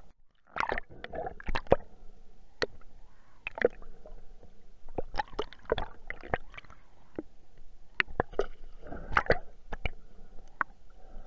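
Underwater sound picked up by the camera: irregular sharp clicks and knocks, some in quick clusters, over a low steady wash of water. It is muffled, as sound recorded under water is.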